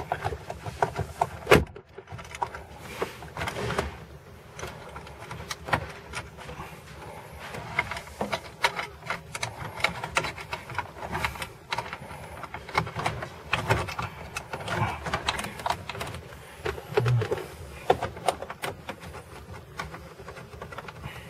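Hand tools working two bolts out from inside a car's center console: irregular metallic clicks, rattles and knocks, with one sharp knock about a second and a half in.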